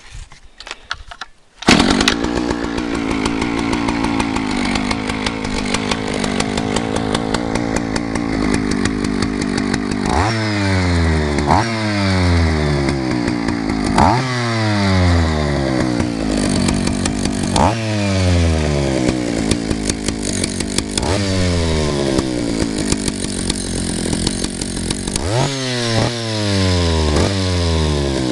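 Vintage Husqvarna L77 two-stroke chainsaw firing up about two seconds in and running steadily, then revved sharply about seven times, its pitch falling back to idle after each. It starts readily and runs strongly.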